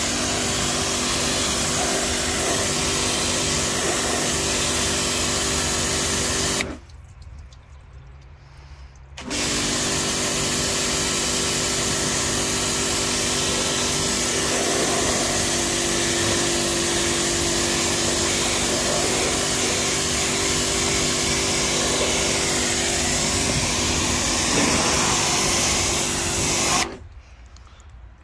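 Pressure washer running, its water jet hissing against a car door panel over a steady motor hum. About seven seconds in, the motor and spray stop for about two and a half seconds, then run again until they cut off suddenly near the end.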